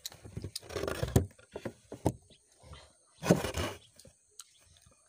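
A child eating rice by hand close to the microphone: scattered mouth clicks and chewing sounds, with two louder noisy bursts, one about a second in and one at about three and a half seconds.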